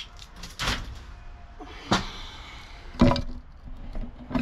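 Three sharp knocks about a second apart, the last the loudest.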